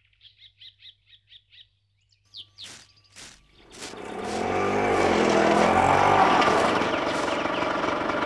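A bird chirps quickly about eight times, then a few short swishes of a broom sweeping a dirt yard. From about four seconds in a vehicle engine swells up and runs loud, its pitch rising and falling: an autorickshaw coming near.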